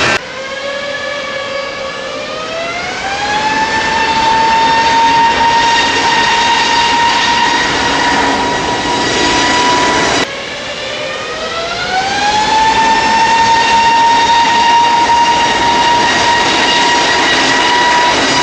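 Jet engines spooling up to takeoff power: a whine that climbs in pitch over about three seconds, then holds as a steady high tone while the overall noise grows louder. It happens twice, with a sudden cut to a fresh spool-up about ten seconds in.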